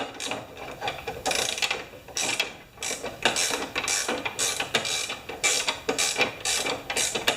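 Hand socket ratchet clicking in quick repeated strokes, about two to three a second, as a loose fastener on a mower's wheel mount is worked without tightening up; a missing bolt is suspected.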